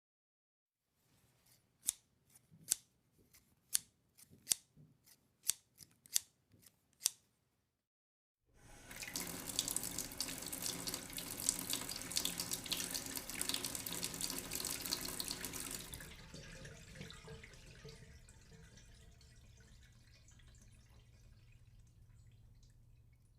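About ten sharp clicks or snips, then after a short silence a steady rush of running water that drops off about two-thirds of the way through and fades away.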